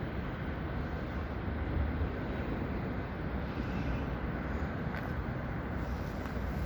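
Steady low outdoor rumble with no distinct events, the kind made by distant traffic.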